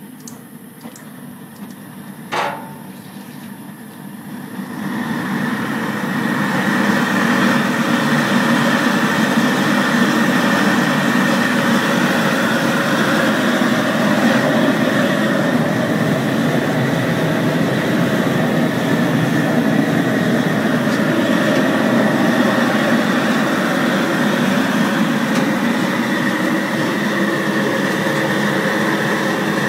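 Propane jet burners under a crawfish cooker: a few light ticks and a sharp pop about two seconds in, then a steady roar that swells over a few seconds and holds.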